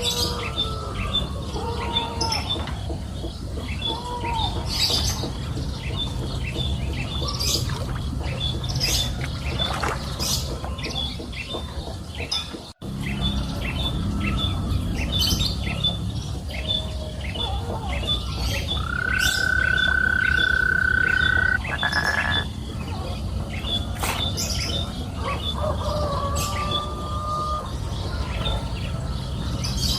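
Birds chirping and calling over a steady low rumble. A short chirp repeats evenly a few times a second, and a long held whistle-like call comes about two-thirds of the way through.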